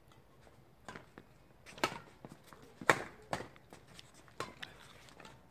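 Badminton rackets striking a shuttlecock in a rally: a series of sharp hits roughly a second apart, the loudest about three seconds in.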